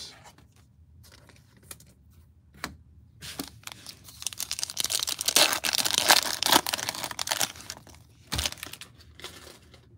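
A 2022 Donruss Optic football card pack being torn open, its wrapper crackling and crinkling for about four seconds. A single thump follows near the end.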